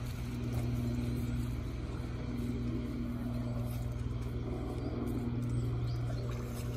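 A steady low motor hum at one even pitch, holding without change.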